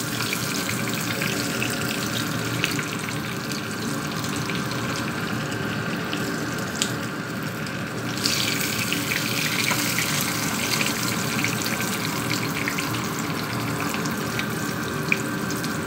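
A whole tilapia frying in hot oil in a pan, a steady sizzle with scattered small pops. The sizzle grows louder about eight seconds in as the fish is moved in the oil with tongs.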